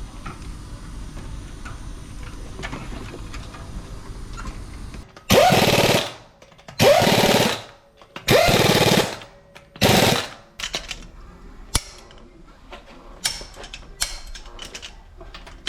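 Impact wrench run in four short bursts about a second and a half apart, each a rapid hammering that starts with a brief rising whine, tightening the lug nuts as a wheel goes back on. Small tool clicks and knocks follow.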